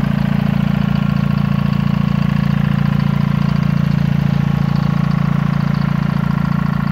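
John Deere 435's two-cylinder two-stroke GM 2-53 diesel engine idling steadily, with an even, rapid pulse.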